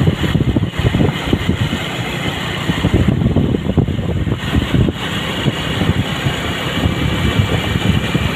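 A vehicle's engine and road noise as it travels steadily along a road, with a rough, uneven low rumble.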